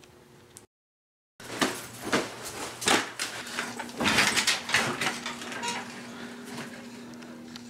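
A scuffle on a bed: irregular thumps, knocks and rustling of clothing and bedding as bodies thrash about, starting after a brief dropout about a second in.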